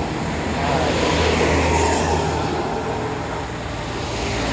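Road traffic passing close by: a vehicle's engine hum and tyre noise swell about a second in and ease off as it goes past.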